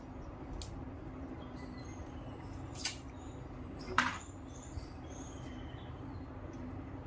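Sticky tape being pulled from its roll and pressed and rubbed onto a paper-covered frame: a few short rasps and handling taps, the loudest about four seconds in, over a steady low background hum.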